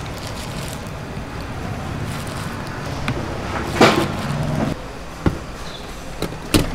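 Stainless steel food pans clanking and knocking against each other and the counter as zucchini is packed and a pan is set into place, the loudest clank about four seconds in. A steady low machine hum runs underneath.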